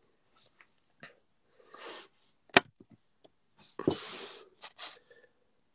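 Handling noise from a smartphone held close to its microphone: one sharp tap about two and a half seconds in, with short noisy puffs and a few softer clicks around it.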